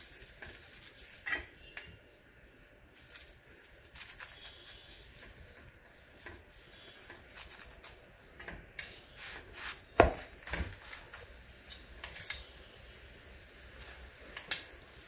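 Steel spoon scraping and tapping on a paratha and the iron tawa while spreading ghee, with scattered clinks, the loudest about ten seconds in.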